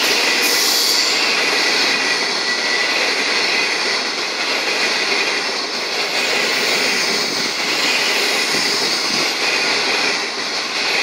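25T passenger coaches of a through train running past without stopping: a loud, steady rush of steel wheels on rail and moving air.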